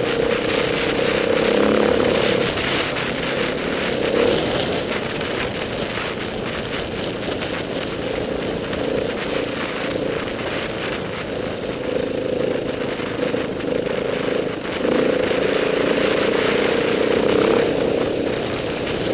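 Off-road motorcycle engine running while riding a muddy track, its note easing off a couple of seconds in and picking up again near the end, over a steady rushing noise.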